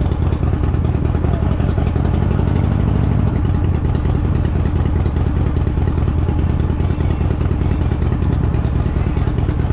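Harley-Davidson Fat Boy's V-twin engine running steadily as the motorcycle rolls slowly through a campground.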